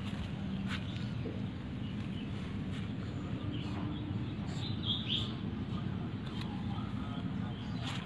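Steady outdoor background noise with a low hum, faint scattered clicks and a short high chirp about five seconds in.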